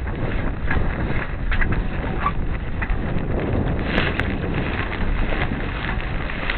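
Wind noise buffeting the microphone of a small sailboat under way in choppy water, with short slaps coming now and then and a sharp double click about four seconds in.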